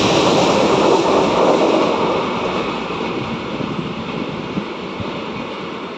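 Rushing rumble of an express train's LHB coaches running through at speed without stopping, wheels clattering on the rails. Loudest for about the first two seconds, then fading steadily as the last coach clears the station.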